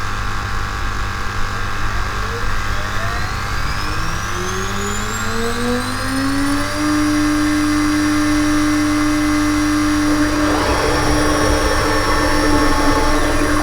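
DIY CNC router spindle motor spinning up: its whine rises over a few seconds, then holds a steady pitch over a low steady hum. A little past halfway, a rougher, noisier sound joins in under the whine.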